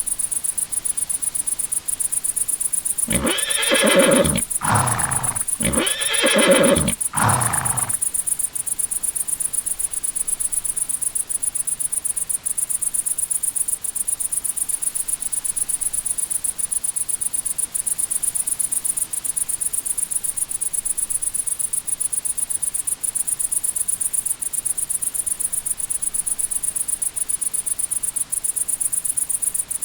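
Steady cricket chirping. A horse whinnies twice over it, about three and six seconds in, each call falling in pitch.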